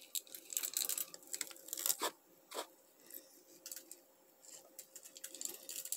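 Dried black-eyed peas dropped by hand into a hollowed pumpkin among dried herbs: faint, irregular small clicks and rustles.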